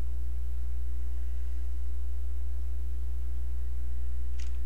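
Steady low electrical hum with a few faint steady tones above it. Near the end come a few computer keyboard key clicks.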